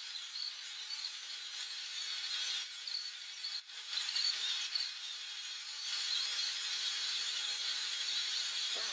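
CNC milling machine cutting brass: a steady high, hissing cutting noise with a brief drop about three and a half seconds in.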